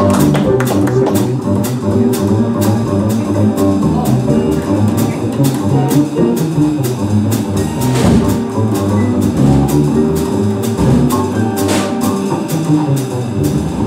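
Jazz rhythm section playing: piano chords over an upright bass line, with the drums keeping a steady beat on the cymbals. The horns and voice are silent.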